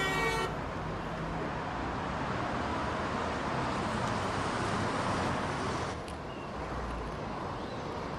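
Road traffic noise, a steady wash of passing vehicles. A held horn-like tone stops about half a second in, and the traffic background changes abruptly at about six seconds.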